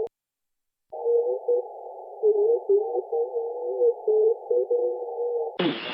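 Single-sideband voice from an Icom IC-7300's receiver heard through a very narrow filter, so it comes out as a muffled, wavering hum with no clear words, after a short gap near the start. Near the end the audio opens up into about a second of band hiss.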